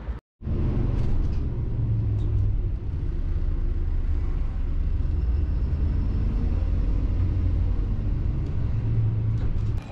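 City bus heard from inside the passenger cabin: a steady low rumble of the engine, starting just after a brief moment of silence.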